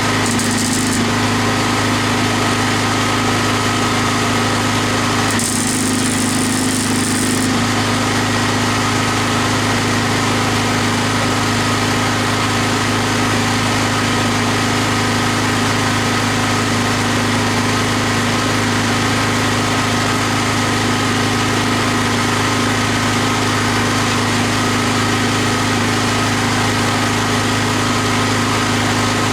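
Steady mechanical drone with a constant low hum, broken by two short bursts of high hiss: one in the first second, and one about two seconds long starting around five and a half seconds in.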